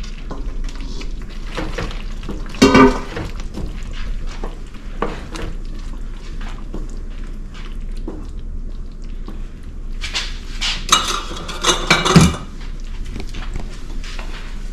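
Kitchen clatter as chicken is scraped from a stainless steel bowl into a skillet of Alfredo sauce, with a loud ringing metal clang about three seconds in. A spoon stirs in the pan, and a burst of clanking pots and utensils comes near the end.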